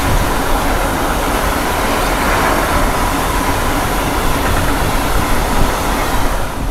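Empty ore train's bogie hopper wagons rolling past close by: a steady rushing noise of steel wheels on the rails with a faint steady whine. The noise drops away near the end as the last wagons go by.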